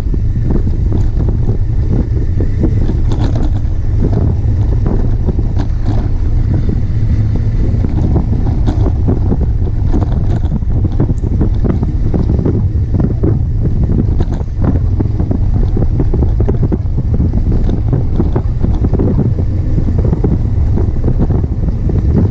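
Heavy wind buffeting on the microphone at riding speed, over the rumble and crackle of knobby mountain-bike tyres rolling on a dirt and gravel trail.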